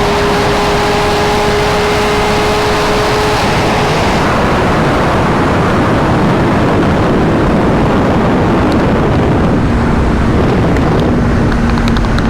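Sport motorcycle running at speed with heavy wind rush over the microphone; a steady engine note holds for the first few seconds, then the wind noise dominates.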